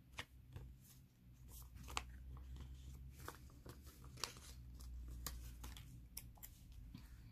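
Paper sticker sheets being handled and moved over a planner page: faint rustles and light scattered ticks, over a low steady hum.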